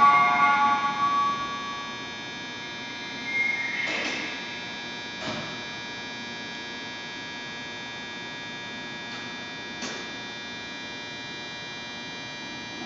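Tail of a chiming station departure melody for about the first second and a half, then the steady electric hum of an Osaka Monorail 1000-series train standing at the platform. A short tone and knock come about four seconds in, and faint clicks come later.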